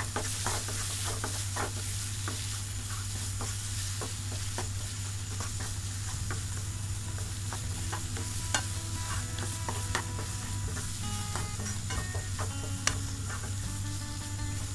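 Crushed ginger and garlic with chilli and fenugreek powder sizzling as they fry in a non-stick pan, stirred with a wooden spatula that scrapes and taps against the pan many times, with one sharper tap near the end.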